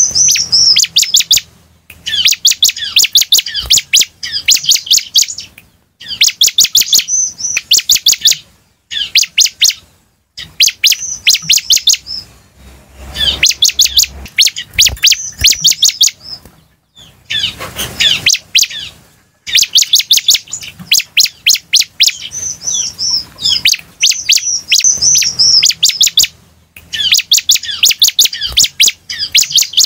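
Bar-winged prinia (ciblek) singing loudly, with fast runs of sharp repeated notes and short chirping phrases. The runs come in bouts of one to four seconds, with brief pauses between them.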